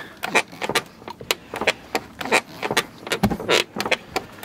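Car door swung back and forth, its door check strap (limiter) giving a series of sharp creaks and clicks. The strap's guide has just been rubbed with bar soap. The squeak is better but not cured, because the soap does not get inside the tightly crimped limiter.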